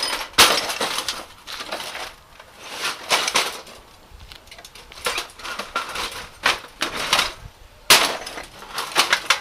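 An axe chopping again and again into the broken glass picture tube of a CRT monitor: a dozen or so sharp, crunching blows of shattering glass at irregular intervals.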